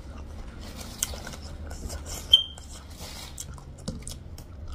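Close-up chewing and mouth sounds of eating, with scattered soft clicks and a brief high squeak a little past halfway.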